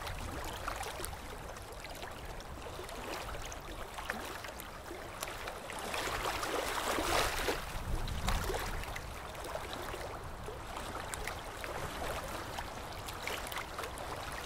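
Moving water: an even wash with many small crackles, louder for a couple of seconds about six seconds in.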